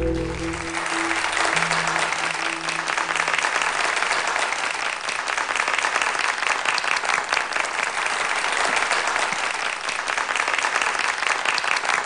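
Audience applauding steadily. The last held notes of soft ambient music fade out over the first few seconds.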